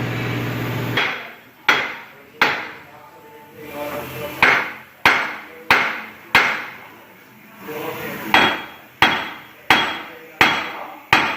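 Hammer blows on a rusted, seized rear wheel hub, driving it out from behind to free it from the brake backing plate. Eleven sharp strikes in three groups of two, four and five, each with a short ring. A steady hum cuts off about a second in.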